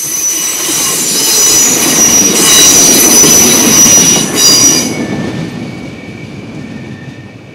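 Alstom Coradia LINT diesel multiple unit passing close by: rail and wheel noise with high-pitched wheel squeal, loudest a few seconds in, then fading as the train pulls away, leaving a couple of thin steady squealing tones.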